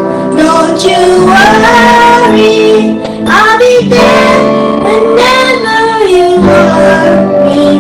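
A song: a woman's singing voice with guitar accompaniment, held notes gliding between pitches.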